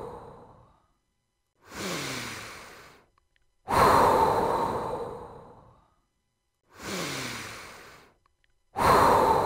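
Slow, deep human breaths pacing a guided breathing exercise. Louder breaths alternate with softer, sighing ones whose pitch falls, each breath fading out over about two seconds, with one breath starting about every two and a half seconds.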